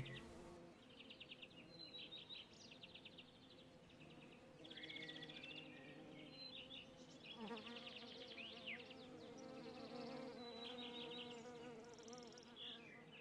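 Faint open-field ambience: insects chirping in short rapid trills, over and over, with a few bird chirps and a faint low hum underneath.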